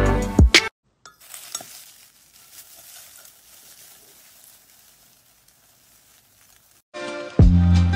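Dried flower petals and buds rustling faintly, with a few light clicks, fading away. Background music cuts off just before and comes back in near the end.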